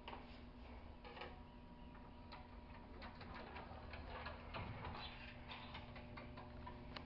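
Faint, irregular small clicks and light taps over a steady low hum: handling noise from a handheld camera being carried through the rooms.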